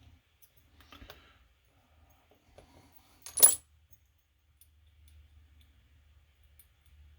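Metal lock parts being handled during disassembly: a few faint small clicks, then one sharp, ringing metal clink about three and a half seconds in.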